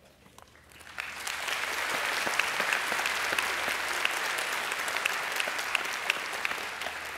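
Large audience applauding, a dense clatter of many hands that starts about a second in after a brief hush and begins to fade near the end.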